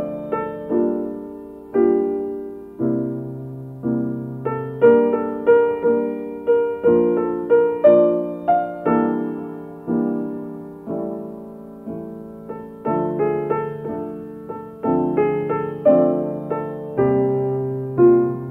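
Slow, gentle piano music: single notes and chords struck one after another, each left to ring and fade.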